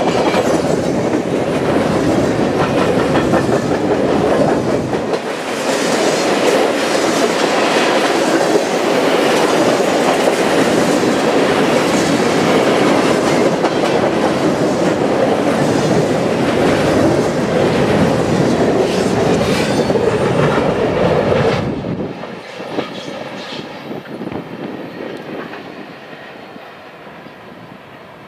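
Covered grain hopper cars of a freight train rolling past close by, their steel wheels rumbling and clattering over the rail joints. About three-quarters of the way through, the last car passes and the sound drops sharply, then fades as the train moves away.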